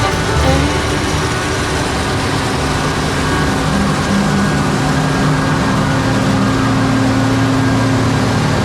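Diesel engine of heavy cotton-harvest machinery running steadily under load, with a constant low hum.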